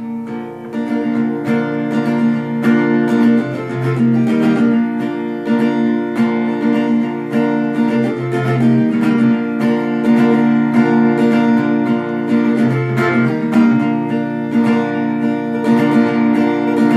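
Acoustic guitar strummed in a steady rhythm, with the chord changing every few seconds.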